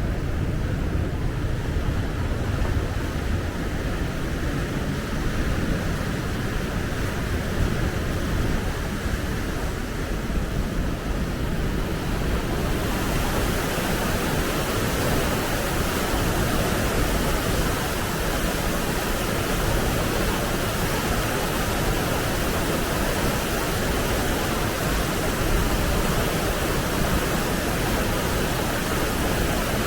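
Steady rush of water from the Rideau River falls at Burritts Rapids, a constant roar that turns brighter and hissier about twelve seconds in.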